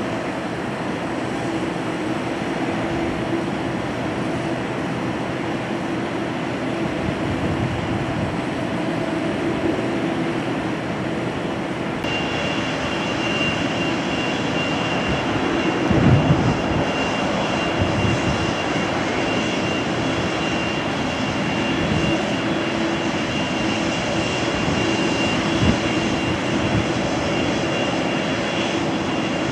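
Jet airliner engines running steadily, heard at a distance at an airport. First comes a Boeing 787 taxiing; about twelve seconds in the sound changes to a twin-engine jet landing, with a thin steady high whine. A brief low thump comes about sixteen seconds in, with smaller ones later.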